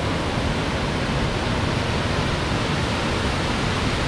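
Waterfall pouring over rock ledges into a rocky river: a steady, even rush of water with a deep low rumble, unchanging throughout.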